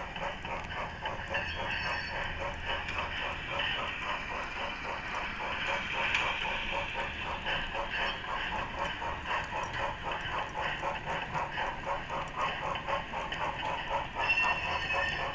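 HO-scale model train running on the layout: a steady mechanical run made of fast, even clicking, with a brief higher ringing tone near the end.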